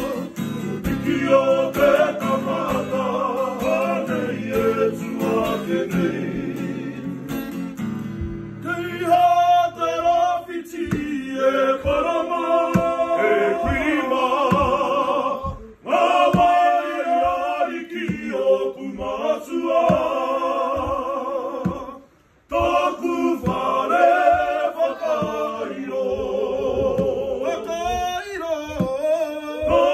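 A group of men singing a Māori song together to a strummed acoustic guitar, breaking off briefly twice.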